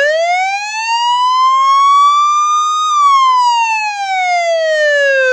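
Emergency vehicle siren sounding one slow wail: the pitch rises steadily for about three seconds, then falls back down.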